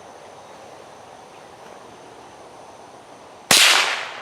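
A single sharp shot from a Henry Silver Eagle .22 lever-action rifle about three and a half seconds in, dying away over about half a second after a quiet stretch.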